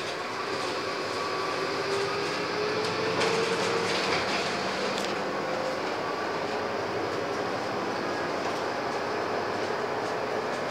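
Interior running noise of a Scania N230UD double-decker bus, heard from the lower deck. Its five-cylinder diesel and transmission pull the bus along with a whine that rises slowly in pitch for the first several seconds as it gathers speed, then holds steady.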